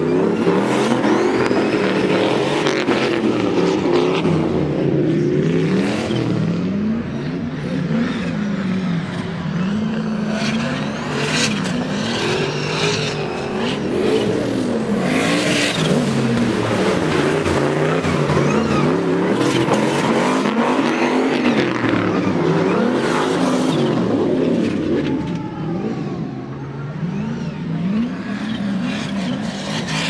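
Two drift cars sliding in tandem, one of them a Nissan S13 with a turbocharged LS V8, their engine notes constantly rising and falling as the throttle is worked, over a hiss of tyre spray. The sound dips briefly a few seconds before the end.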